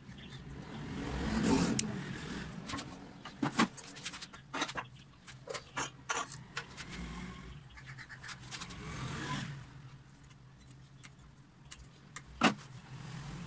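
Handling noise from a black plastic blower housing and loose screws: scattered clicks, taps and small rattles, with one sharp click near the end. Twice a broad whoosh swells up and dies away, about a second and a half in and again around nine seconds.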